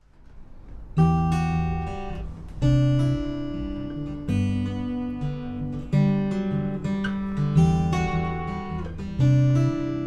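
Acoustic guitar playing the instrumental intro of a song: a chord is struck about every second and a half and left to ring, starting about a second in.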